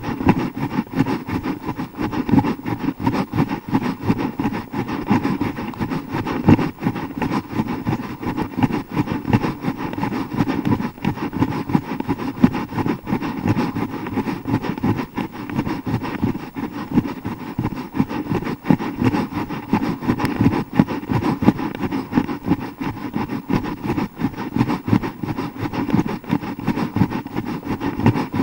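Steady, fluttering wind and handling noise on the microphone of a hand-held action camera carried by a jogger on the run.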